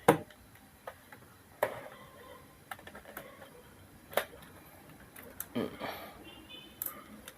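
A camera and a Yongnuo 660 speedlight being test-fired: a run of sharp single clicks, roughly one every second or so, two of them louder than the rest. A short low murmur of a voice comes in near the end.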